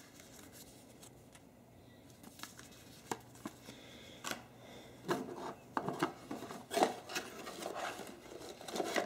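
Hands handling product packaging: a few light clicks and taps, then from about five seconds in, a cardboard box and its contents rustling and scraping as it is picked up and opened.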